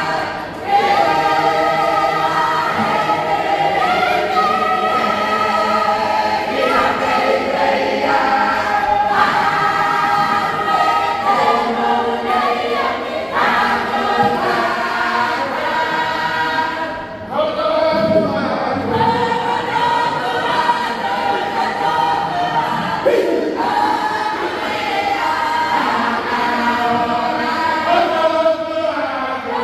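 Unaccompanied congregational choir singing a traditional Cook Islands Māori Christmas hymn in several voices, with held notes and short breaks between phrases, one just after the start and one about halfway through.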